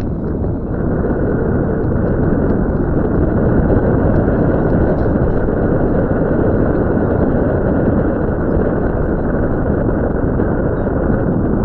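Land Rover Discovery 2 driving along a dirt forest road, heard from inside the cab: a loud, steady rumble of engine and tyres on dirt, with wind buffeting the microphone. It grows a little louder about a second in.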